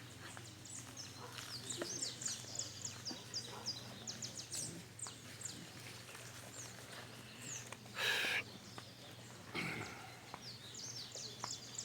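Many small birds chirping in quick, high, falling notes, with a short, louder harsh burst about eight seconds in.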